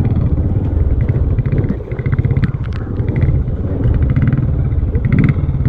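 Motorcycle engine running at low speed with a steady stream of firing pulses, easing off briefly about two seconds in. A few light knocks and rattles come from the bike riding over the rocky, muddy track.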